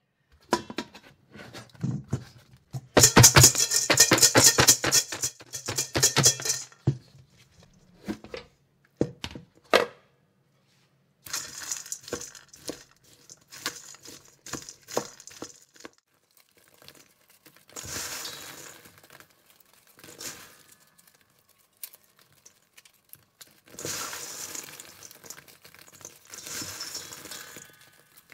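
Wooden spatula stirring caramel-coated popcorn in a stainless steel bowl, a fast run of scraping and rattling that is loudest a few seconds in. After that, hands pull the sticky popcorn apart in several short bursts of crunchy crinkling.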